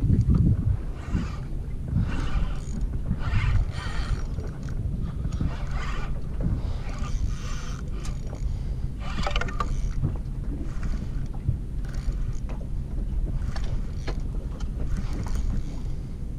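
Small waves lapping and slapping irregularly against the hull of a small boat, over a steady low rumble.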